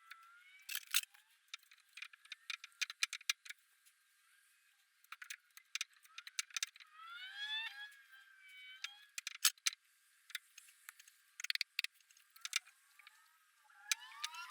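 Irregular light metallic clicks and clinks of Harley Evolution engine parts and hand tools being handled during cylinder head assembly. A few short rising squeaky glides come about seven seconds in and again near the end.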